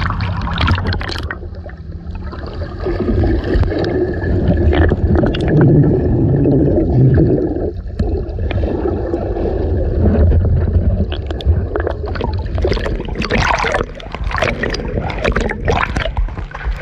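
Seawater sloshing and gurgling around a camera held at the surface while swimming in choppy waves with a strong current, with sharper splashes in the last few seconds.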